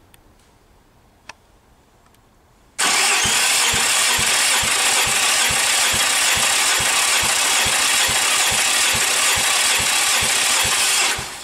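Nissan VQ35HR 3.5-litre V6 cranked over on its starter for a compression test of cylinder four. It starts about three seconds in as a steady whirring with a quick, even low pulsing, then dies away near the end. The gauge shows a healthy 14 kg/cm² on that cylinder.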